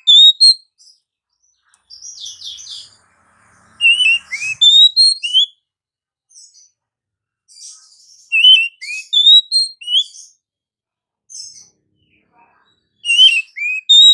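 Oriental magpie-robin singing: short phrases of clear, rising whistled notes, repeated about every four seconds, with a scratchier chattering phrase between them.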